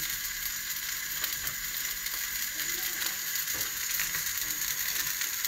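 Salmon fillets sizzling in hot oil in a frying pan: a steady crackling hiss.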